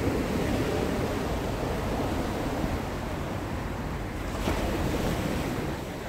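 Surf on a sandy beach: waves breaking and washing up the shore in foam, a steady rush that swells a little about four and a half seconds in.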